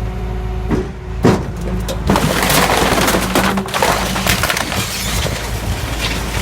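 Garbage truck's compactor crushing a fridge, with the truck's steady machine hum underneath. Two sharp cracks come about a second in, then a few seconds of continuous crunching, cracking and splintering.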